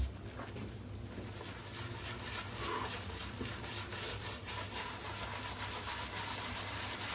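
Boar-bristle shaving brush swirling and brushing lather over stubbled skin, a soft rhythmic swishing of wet bristles, several strokes a second.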